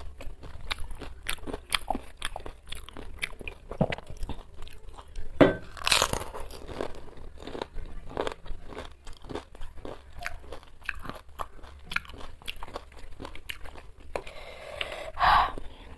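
Close-mic chewing of fuchka (pani puri): crisp fried puri shells crunching between the teeth in many small, quick crunches, the loudest about six seconds in.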